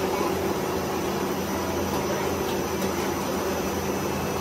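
Plastic pipe extrusion line running: a steady mechanical hum and whir as the caterpillar haul-off's chain tracks draw the PVC pipe along.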